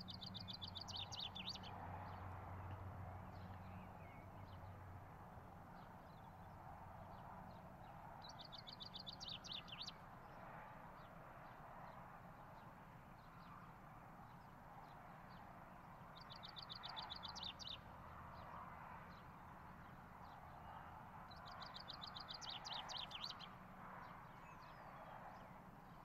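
Male common chaffinch singing: four short song phrases, each a fast run of high notes lasting about a second and a half, several seconds apart.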